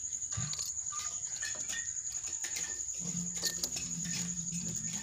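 Iron chain clinking in short, scattered clicks as it is fastened between a bull's yoke and the beam of a gear, over a steady high insect trill. A low steady drone sets in about three seconds in.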